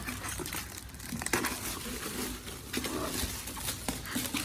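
Wrapping paper and packaging crinkling and rustling as a wrapped gift box is handled, with a few light knocks.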